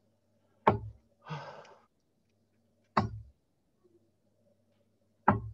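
Three steel-tip darts thudding into a Winmau Blade bristle dartboard one after another, about two seconds apart, each a sharp hit with a short low thud. A short breathy exhale follows the first dart.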